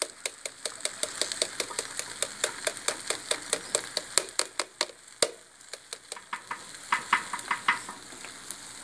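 A spoon stirring a creamy stew in a clay cazuela, clacking against the pot several times a second. A sharper knock comes about five seconds in, and a few lighter taps follow near the end.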